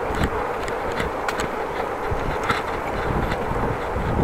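Bicycle being ridden: a steady rumble of the tyres on the road with wind on the microphone, and light, irregular clicks and rattles from the bike.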